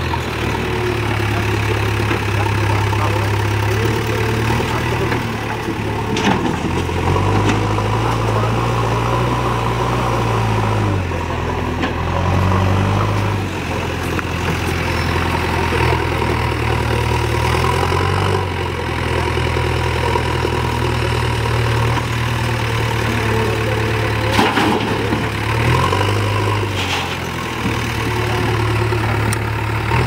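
JCB backhoe loader's diesel engine running steadily, its pitch rising and falling several times as it revs to work the front loader bucket. Two or three sharp metallic clanks stand out, about six seconds in and again near the end.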